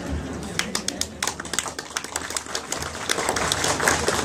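Audience clapping: scattered, uneven claps from about half a second in, thickening into applause near the end.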